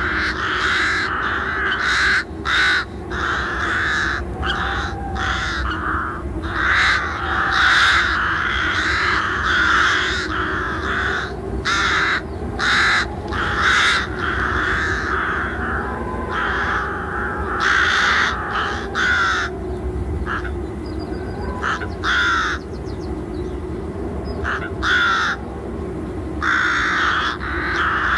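Birds calling over and over, many calls overlapping one another, over a steady low background rumble.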